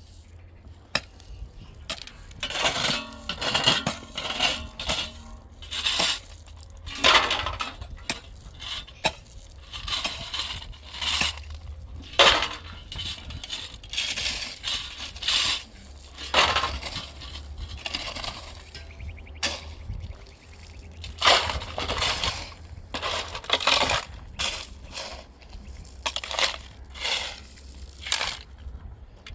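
An irregular series of short crunching and clinking strokes, about one or two a second, as of things being handled, broken or knocked together.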